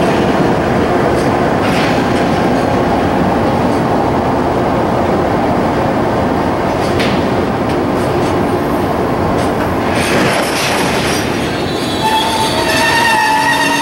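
Loaded Taki 1000 oil tank cars of a freight train rolling past slowly, wheels clicking over rail joints every second or two. Near the end a steady squeal of several tones comes in as the train brakes to a stop.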